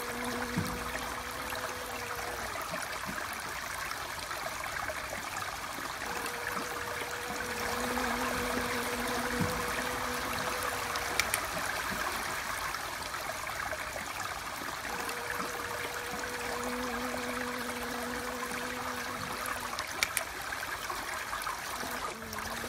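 Steady rush of flowing water, like a small stream. A faint low steady hum comes and goes every several seconds.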